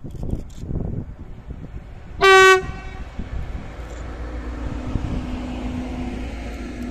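A Lotos-liveried Bombardier TRAXX class 285 diesel locomotive, running light, gives one short horn blast about two seconds in. It then passes close by with its diesel engine running and its wheels rolling on the rails.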